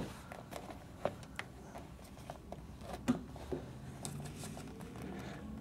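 A few scattered light clicks and taps over a quiet room background, the sharpest about three seconds in.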